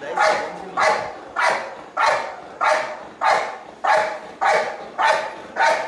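A Belgian Malinois barking steadily at a helper's bite sleeve: about ten sharp barks, evenly spaced, a little under two a second.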